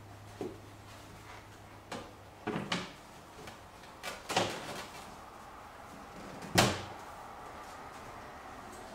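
Plastic side cover panel of a Honda Goldwing 1500 being handled and fitted back onto the motorcycle: a series of knocks and clicks, the loudest a sharp clunk about six and a half seconds in.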